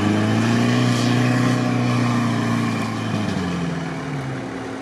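Toyota Land Cruiser 70-series engine working hard as it climbs a sandy hill. Its revs rise over the first second and hold, then fall away in the last couple of seconds as it fades.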